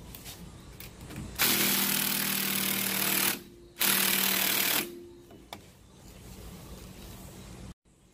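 Makita 18V cordless impact driver hammering as it spins out a 14 mm rear brake caliper bolt. It runs in two bursts, about two seconds and then about one second, with a short gap between them.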